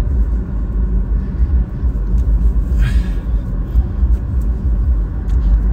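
Low, steady rumble of a motor vehicle's engine, with a short hiss about three seconds in.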